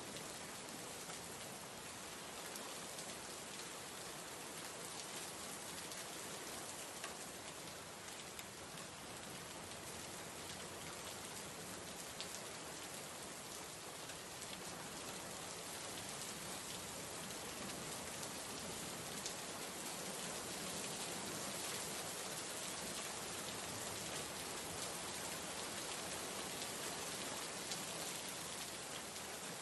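Hot oil sizzling steadily as a South Indian tempering of mustard seeds, fennel seeds, dry red chillies and curry leaves fries in a stainless steel pan, with an occasional faint crackle.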